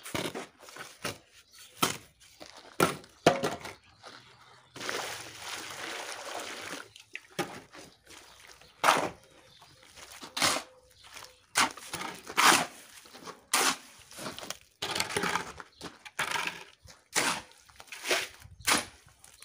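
Steel shovel scraping and chopping a sand-and-cement mix on a concrete floor in repeated strokes, each under a second apart. About five seconds in comes a steady two-second rush as water goes into the mix. After that the strokes work wet mortar.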